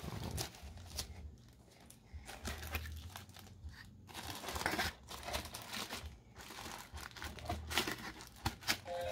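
Packaging being handled: a foam wrap sheet and a cardboard box insert pulled and lifted out of a cardboard box, rustling and crinkling irregularly with a few dull handling bumps.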